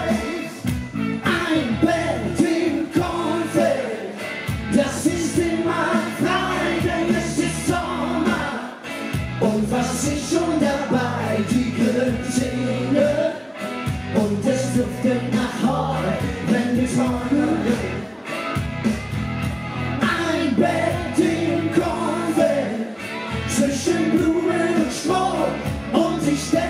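Live upbeat Schlager pop music, a man and a woman singing into microphones over band music with a steady beat.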